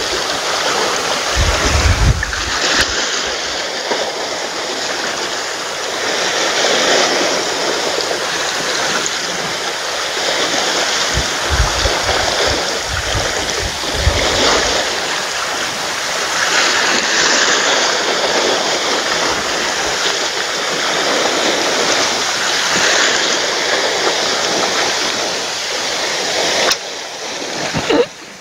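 Small sea waves washing and lapping over a rocky shoreline: a steady rush of water that swells and eases every few seconds, with a few low rumbles. The wash drops away abruptly near the end.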